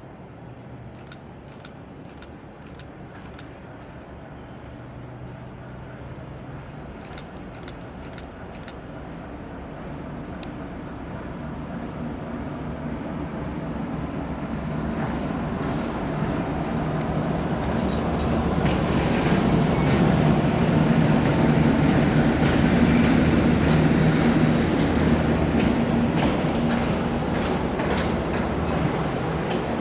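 ChME3 shunting diesel locomotive hauling freight wagons, its six-cylinder diesel engine droning steadily and growing louder as it approaches, loudest about two-thirds of the way through. The wheels clack over rail joints.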